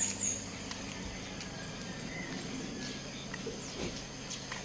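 Outdoor ambience of insects chirping, a high pulsing trill that stops just after the start, then fainter chirps and occasional faint bird calls.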